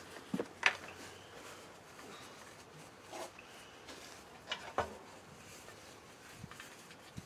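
A few light clicks and knocks with faint rustling as greasy hands are wiped on a paper shop towel: two close together about half a second in and two more just under five seconds in.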